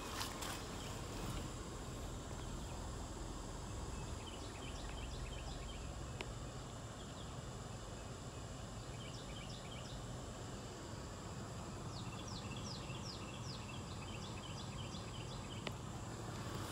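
A small songbird chirping in several bouts of quick repeated high notes, over a steady low rumble of outdoor background noise.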